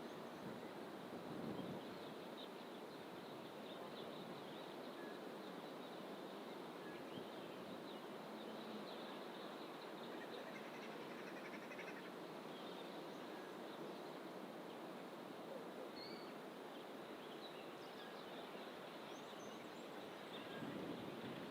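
Faint, scattered chirps and short calls of small birds in fynbos bush, over a steady rushing background of distant surf.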